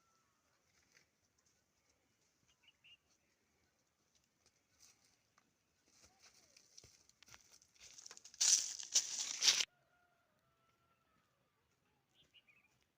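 Dry rustling and crunching that builds over a few seconds, grows loud for about a second, then stops suddenly, with faint chicken clucks in the background.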